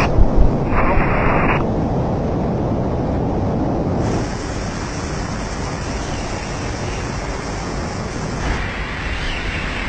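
Steady rush of air buffeting the microphone, as in wingsuit flight or an open aircraft, with a short burst of two-way radio noise about a second in.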